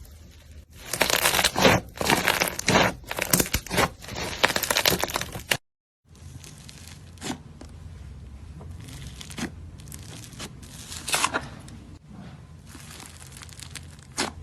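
Slime being squeezed and pulled apart by hand, making crackling, tearing noises in quick bursts for the first five seconds or so. After a brief cut, softer scattered crackles follow, with one louder burst near the end.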